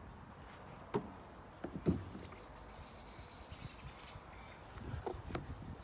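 Outdoor rural ambience: a couple of dull knocks, the louder one about two seconds in, and a faint high bird call lasting about a second in the middle, with a few soft thuds near the end.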